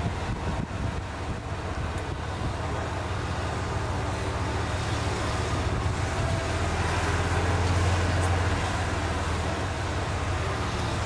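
Golf cart running as it rolls along, a steady low hum with tyre and road noise, swelling briefly about two-thirds of the way through.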